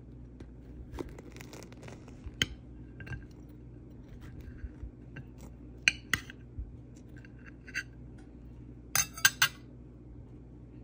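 Serrated table knife sawing through a crusty bread roll on a plate, with scattered clinks and scrapes as the blade knocks against the plate. A quick run of three or four sharp clinks comes near the end.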